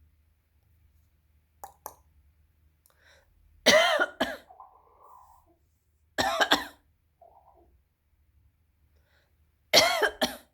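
A rooster giving three short, loud, harsh calls, about three seconds apart, each under a second long.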